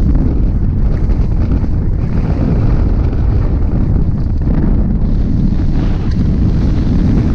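Heavy wind buffeting the microphone of a camera mounted on a hang glider: a loud, steady rumble of airflow as the glider launches and flies.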